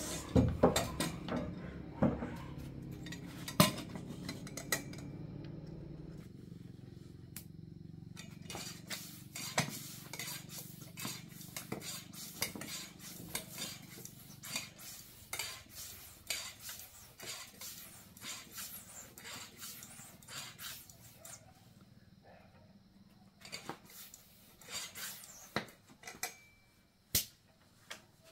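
Metal tools clinking and tapping on a bicycle wheel's hub and spokes: a long run of sharp, irregular metallic clicks. A low hum sits under the clicks for the first several seconds, then fades out.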